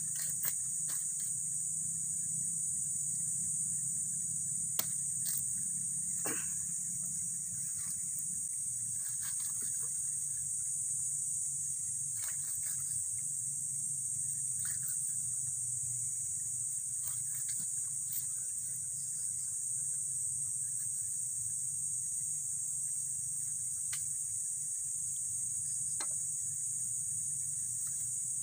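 Steady high-pitched insect chorus, with a few scattered sharp knocks of a bolo knife cutting eel on a wooden chopping block.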